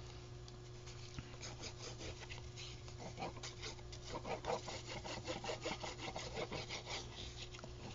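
Fine-tip glue bottle's nozzle scratching across the back of a piece of handmade paper as glue is laid on, a quick run of short scratchy strokes that gets busier about three seconds in.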